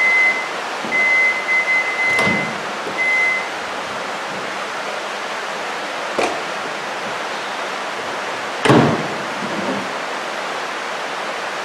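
Whirlpool microwave oven beeping at one high pitch, a short beep, a long one and another short one, in the first few seconds. Then come a latch click, another click about six seconds in, and a louder thump near nine seconds as the door is handled and shut. Steady rain hiss underneath.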